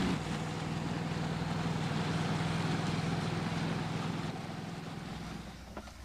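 Boat engine running with a steady low hum, with wind and water noise, fading away near the end.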